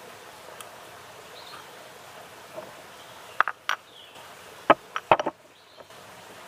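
Stone mortar and pestle knocking: a few sharp clicks about three and a half seconds in, then a quick group of knocks around five seconds as the mortar is set down on rock. Under them is a faint, steady outdoor background.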